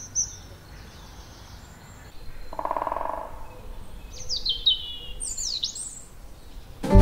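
Woodland birdsong: high whistled phrases that fall quickly in pitch, at the start and again in the second half, with a short buzzing sound a little before the middle. Music with drums starts right at the end.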